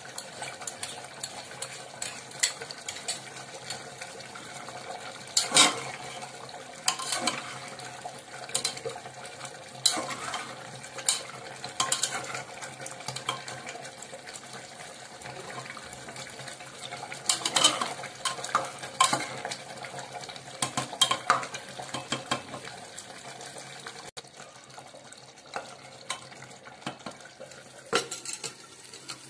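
A metal spatula stirring thick curry in an aluminium pressure cooker, scraping and knocking irregularly against the pot's sides and rim over a steady low hum.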